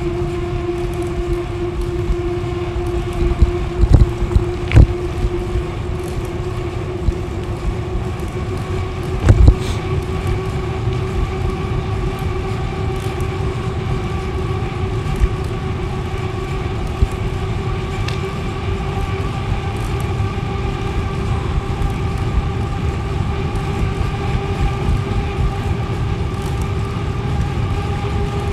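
Bicycle rolling through a tunnel: a steady low rumble of tyres and wind with a steady whine whose pitch creeps slightly upward, and a few sharp bumps about 4, 5 and 9 seconds in.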